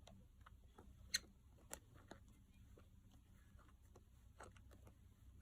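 Faint handling noise from a 35 mm film camera being worked by hand, with a few sharp clicks, the clearest about a second in and another shortly after.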